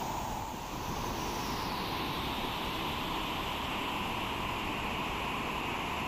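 Rain-swollen stream of white water rushing and churning down a rocky channel, a steady rush of water.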